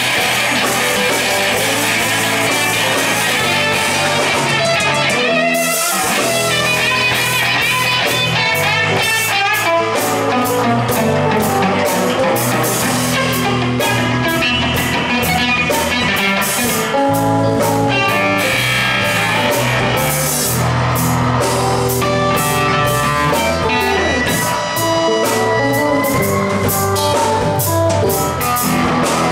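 A live band playing loud blues-rock: electric and acoustic guitars over a drum kit, with a brief break about six seconds in before the drums come back in.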